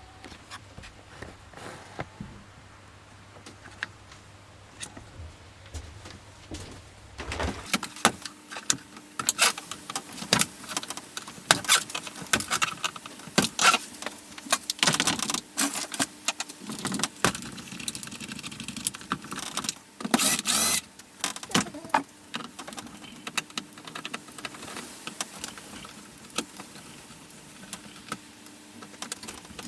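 Clicks, knocks, rattles and scraping from an old Samsung laptop being taken apart by hand: plastic casing and small metal parts knocking and clattering. The handling noises begin after a quiet stretch of several seconds and then come irregularly.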